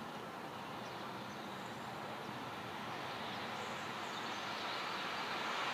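Road traffic noise from a vehicle on the street, a steady rush that grows gradually louder as it approaches.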